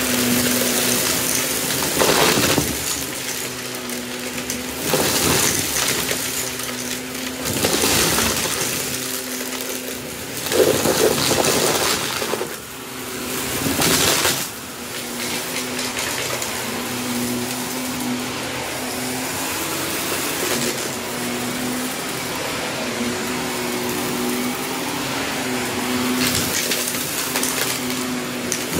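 Shark upright vacuum cleaner running with a steady motor hum and suction hiss. Several times it swells into a short burst of rattling as small hard bits of debris are sucked up into the nozzle and dust cup, loudest about ten to eleven seconds in.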